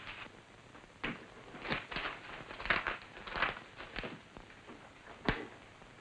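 A large sheet of paper rustling as it is handled and spread out on a printing press, with a few small knocks, then one sharp knock about five seconds in.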